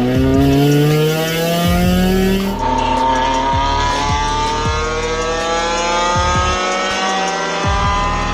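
Car engine accelerating under load, its pitch rising steadily. About two and a half seconds in the sound cuts abruptly to another stretch of the engine pulling, starting lower and climbing slowly through the revs.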